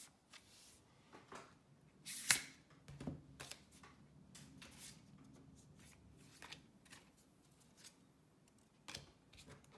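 Faint rustling and clicking of a tarot deck being handled, with a sharper click about two seconds in and another near the end.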